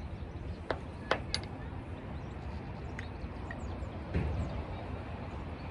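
Sharp clicks from a caulking gun and metal fittings being handled: three close together about a second in and a duller knock around four seconds in, over a steady low rumble.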